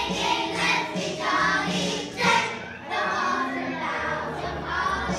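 Music with a group of children's voices singing together over an instrumental backing.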